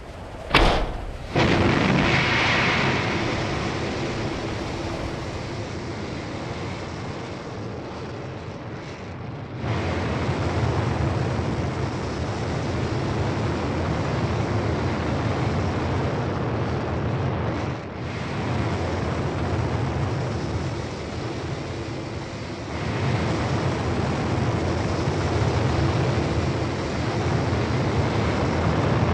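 Sound effects for the Mars 2020 descent stage's rocket thrusters. A sharp bang about half a second in, then a steady rocket rumble that gets louder about ten seconds in and again about 23 seconds in.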